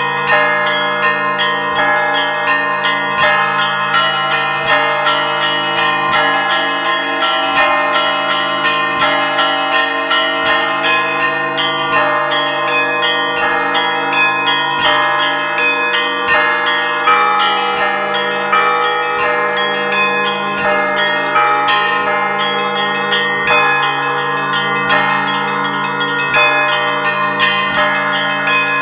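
Orthodox monastery church bells rung together in a continuous peal: small bells struck in quick, overlapping strikes of different pitches over the long, steady ringing of larger, deeper bells.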